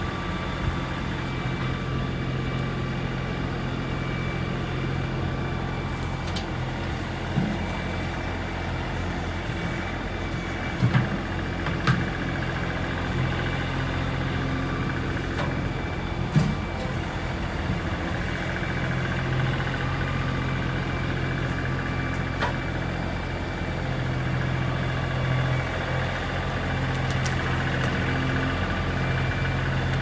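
LS XR3135 compact tractor's three-cylinder diesel engine running steadily as the tractor drives forward with its front loader, with a few short, sharp clunks in the middle.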